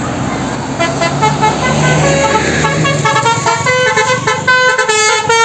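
Bus's telolet musical horn playing a quick tune of several notes sounding together, stepping from chord to chord and growing busier toward the end, over the low hum of the bus engine.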